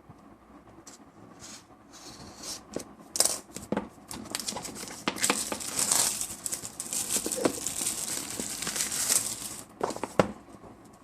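Smartphone retail box packaging being torn open and crinkled by hand, with scattered sharp clicks and then several seconds of continuous crackling that stops shortly before the end.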